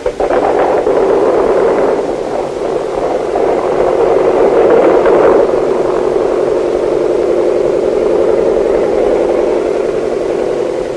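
Ford Trimotor's piston engines running with a steady, rapidly pulsing drone that starts abruptly and fades near the end.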